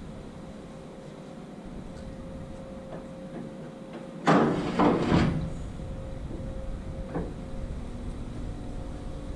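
Metal rear-door hardware of an aluminium tipper trailer being worked: a loud clank and rattle about four seconds in as the grain-chute slide is released and opened, then a short click a couple of seconds later, over a steady background hum.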